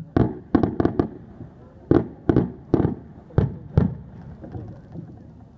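Aerial firework shells bursting, about a dozen sharp bangs in irregular quick succession, dying away after about four seconds.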